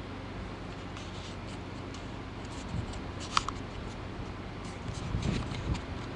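Light handling noise from the Kobalt 24 V 6-inch mini chainsaw being adjusted by hand at its chain-tightening knobs: scattered small clicks and rubbing, with one sharp click a little over three seconds in. A steady low hum sits underneath.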